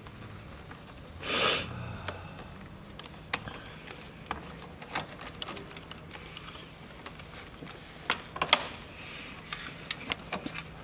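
Small clicks and taps of hands handling a cable and its fittings under a motorcycle. A brief, louder rush of noise comes about a second and a half in, and a quick cluster of clicks about eight seconds in.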